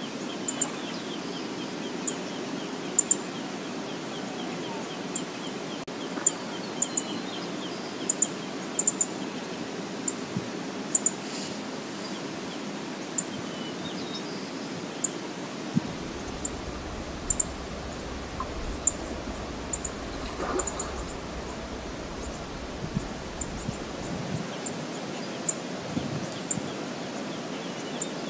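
Steady rush of flowing river water with short, high bird chirps, singly and in pairs, about once a second. A low rumble comes in for several seconds in the middle.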